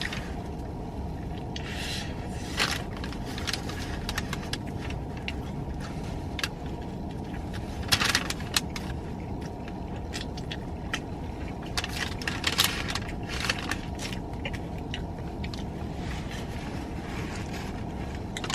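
Steady low rumble of a car cabin, with scattered rustles and clicks of things being handled, loudest about 8 and 12.5 seconds in.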